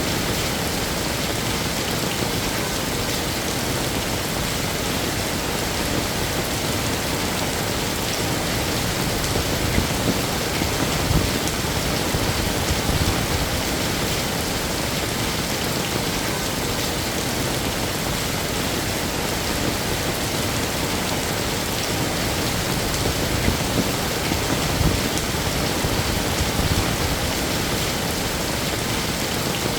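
Heavy rain falling steadily in a dense, even hiss, with a few brief louder swells about ten seconds in and again near twenty-five seconds.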